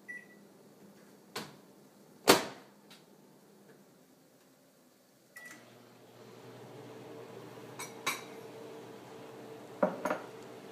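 Kitchen sounds: a few sharp knocks and clicks, the loudest about two seconds in. About halfway through, a short beep is followed by a steady electric appliance hum, with a few light clicks over it.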